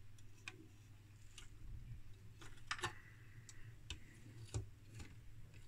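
Faint, irregular light clicks and taps from circuit boards and the plastic electrocardiograph housing being handled, about ten in all, over a low steady hum.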